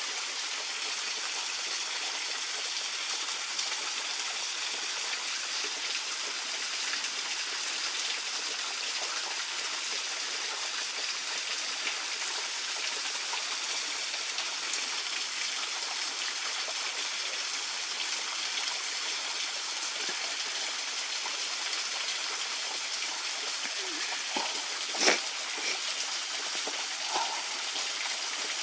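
Small waterfall trickling down a rock face: a steady, even splashing rush of water. A single sharp knock stands out near the end, with a couple of fainter ones around it.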